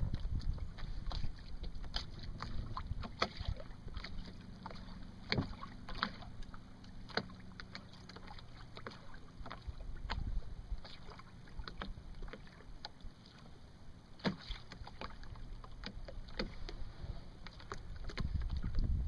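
Water lapping and slapping in irregular little splashes against the hull of a small boat under way, over a low rumble that is strongest near the start and near the end.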